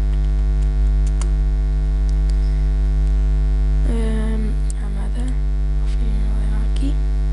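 Loud steady mains hum, a low electrical buzz with many evenly spaced overtones, picked up through the recording microphone. A few faint clicks, likely keyboard and mouse, come early on, and a short murmur of voice comes about four seconds in and again near the end.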